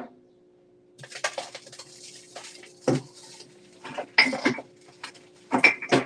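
Hard objects clattering and knocking in irregular bursts, with the sharpest knocks about three, four and six seconds in, over a steady low hum.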